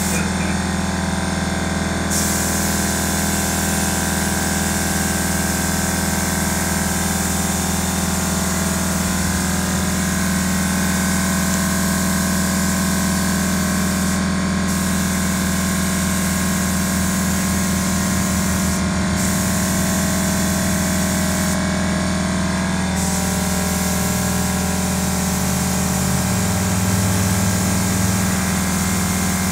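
Gravity-fed paint spray gun hissing as it atomises paint, starting about two seconds in and cutting out briefly three times as the trigger is let off. Under it runs the steady hum of the air compressor that feeds the gun.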